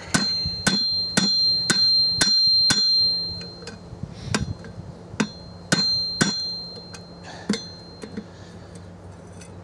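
Blacksmith's hammer striking hot steel on an anvil, about two blows a second at first, each followed by the anvil's high ringing. After about three seconds the blows come more slowly and unevenly.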